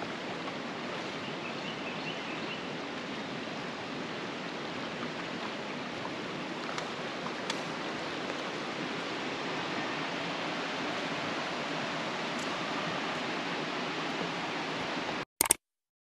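Shallow rocky creek flowing over stones, a steady rushing hiss of water, which cuts off suddenly near the end.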